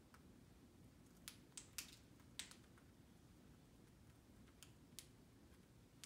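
Light, sharp clicks from an Indian ringneck parakeet's beak nibbling at the string and clip of a hanging toy shoe: four a little over a second in, then two more near the end.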